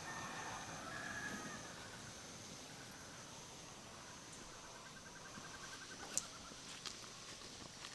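Faint tropical forest ambience: a steady high-pitched insect buzz, a rapid pulsing trill starting about five seconds in, and a few sharp clicks.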